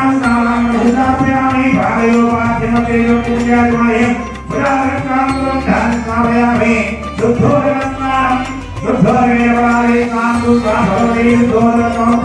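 Devotional music: a voice sings a melody in long held notes over a steady accompaniment.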